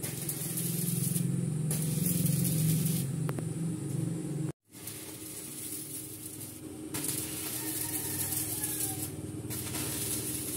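Stick (arc) welding on steel window grill bars: the electrode arc crackling and hissing in spells of a few seconds, with short breaks between them, over a steady low hum. The sound cuts out completely for a moment a little under halfway through.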